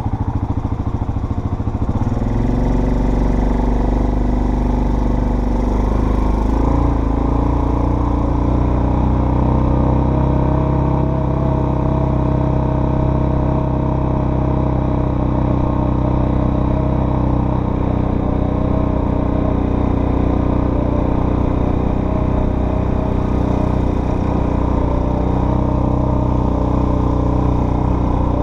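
Off-road vehicle engine running steadily on a trail ride. Its note rises about two seconds in and then holds.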